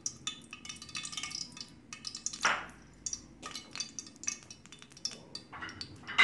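Hot oil crackling and popping in a non-stick kadai with spice granules in it: many small irregular pops, a louder short sizzle about two and a half seconds in, and a sharp clink at the very end.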